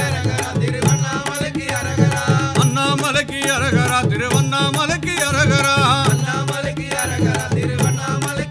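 Tamil devotional song to Shiva: an ornamented, wavering melody over hand drums keeping a steady beat.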